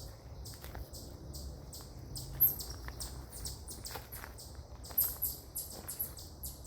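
Small birds chirping: rapid short, high chirps, with louder sharp calls about two and a half and five seconds in, over a low rumble.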